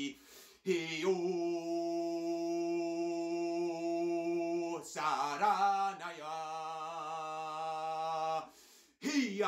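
A man's voice chanting wordless 'light language' in long held notes: a steady note of about four seconds, then a second one that wavers in pitch at first before settling. Short breaks come just after the start and about a second before the end, where a third note begins.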